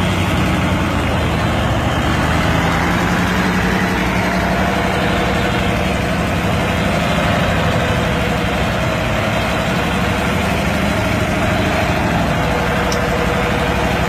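Heavy diesel engines running hard and steady, their pitch drifting slightly up and down: a loaded truck straining to climb out of soft dirt while a crawler excavator tows it on a cable.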